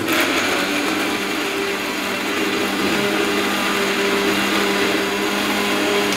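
Electric mixer grinder with a steel jar switched on and running steadily, grinding fresh coriander, mint, green chillies and garlic with a little water into a wet paste. The motor starts suddenly at the very beginning and holds an even pitch throughout.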